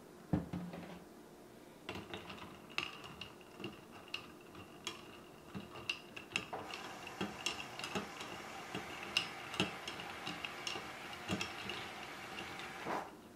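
Long metal spoon stirring ice cubes in a glass mason jar of iced coffee: irregular clinks of spoon and ice against the glass over a steady swish of liquid, starting about two seconds in.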